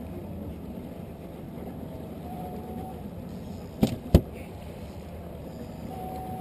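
Small outboard motor running steadily at trolling speed, with a faint wavering whine and water and wind noise around the boat. Two sharp knocks come about four seconds in, a third of a second apart.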